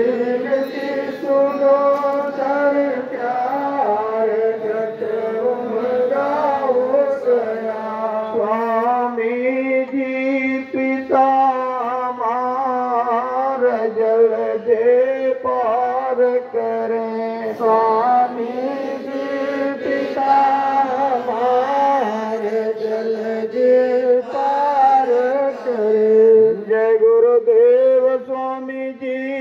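Devotional prayer chant sung over a steady droning accompaniment. The melody rises and falls above a held low note.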